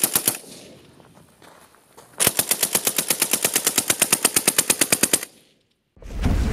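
Textron NGSW automatic rifle, 6.8 mm case-telescoped and fitted with a suppressor, firing full-auto: a short burst of a few rounds at the start, then a long burst of about three seconds at roughly ten rounds a second that stops abruptly. Near the end a deep boom begins.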